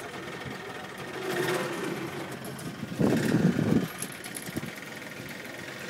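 Small boat engine running steadily as the boat moves out onto the river, with a brief loud low rush about three seconds in.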